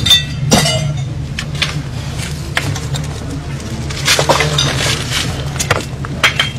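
Brittle objects being smashed as a shrine is wrecked: a string of sharp clinks and breaking cracks at irregular intervals, over a steady low drone.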